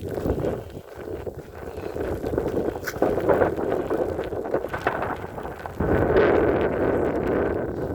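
Wind buffeting the microphone: a loud, rough rumbling noise that swells about six seconds in.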